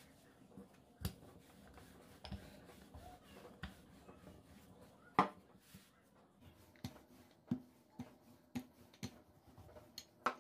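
Light knocks and taps of a wooden rolling pin and hands on a wooden cutting board while soft dough is rolled out: scattered at first, then about two a second in the second half, with the loudest knock about five seconds in.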